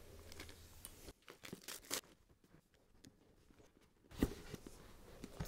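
Clear plastic shrink-wrap being torn and peeled off a cardboard laptop box: faint crinkling and tearing in short bursts. A single dull thump about four seconds in as the box is handled.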